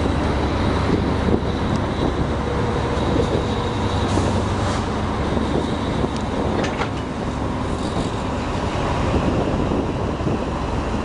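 Passenger train running through floodwater, a steady rumble of the carriages mixed with the rush of water washing along their sides, with a couple of faint clicks about two-thirds of the way in.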